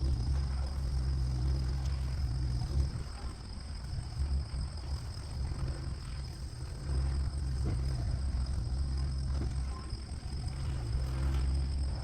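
Toro TX1000 mini skid steer's diesel engine running under load while driving a Virnig V20 brush mower. The low rumble eases off briefly about three seconds in and again near ten seconds, with a steady high whine above it.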